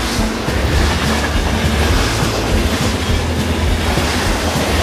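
Motorised Trackmaster toy train engines running steadily on plastic track: a constant motor hum with the rattle of their wheels and wagons on the rails.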